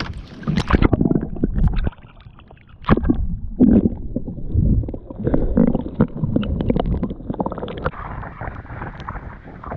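Muffled sloshing and gurgling of sea water around a submerged microphone, with irregular low thumps and little high sound.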